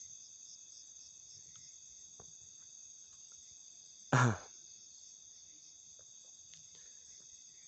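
Steady high-pitched chorus of crickets in the night. About four seconds in, a person makes a short voiced sound that lasts a fraction of a second.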